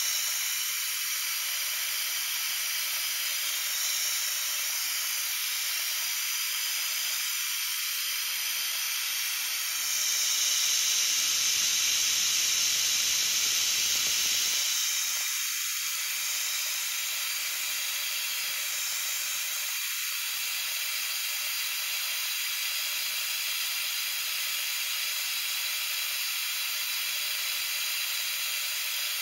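End mill on a vertical milling machine finish-cutting a pocket in a metal block: a steady hiss, louder for about four seconds near the middle.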